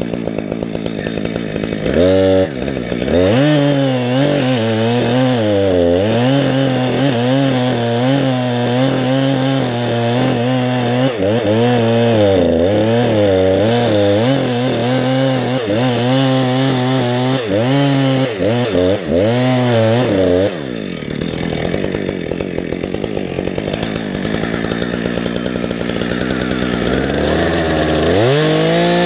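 Chainsaw engine at idle, revved up about two seconds in and held at high speed for some eighteen seconds, its pitch dipping and recovering as it works through wood, then dropping back to idle before a short rev near the end.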